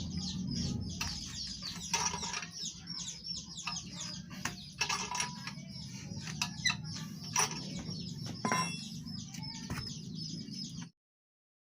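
Birds chirping again and again over a steady low hum, with a few sharp knocks; all of it cuts off suddenly near the end.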